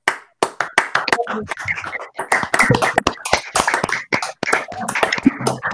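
Several people clapping over a video call: irregular, overlapping claps of uneven loudness.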